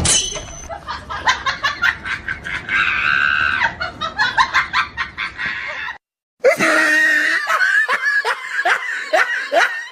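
A person laughing hard in quick repeated pulses, breaking off for a moment about six seconds in, then laughing again with each pulse falling in pitch.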